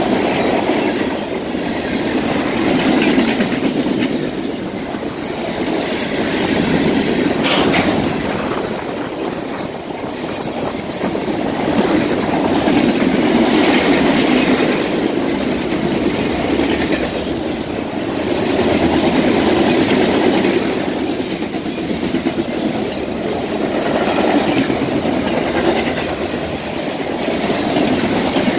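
Freight train cars rolling past: a steady rumble and clatter of steel wheels over the rails, swelling and easing every few seconds as the cars go by.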